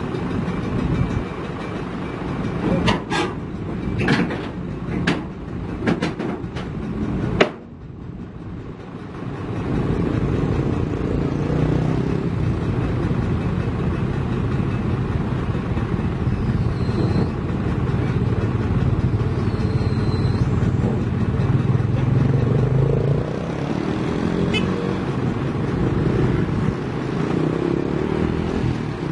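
Kobelco hydraulic excavator's diesel engine running as the machine works its way onto a self-loader truck's tilted deck, with several sharp knocks in the first seven seconds. From about ten seconds in the engine settles into a louder, steady drone.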